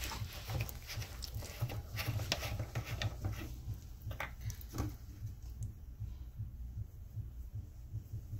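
A bare hand mashing and squeezing fried eggplant pieces against a plate, making a run of brief, irregular soft clicks that thin out after about four seconds, over a steady low rumble.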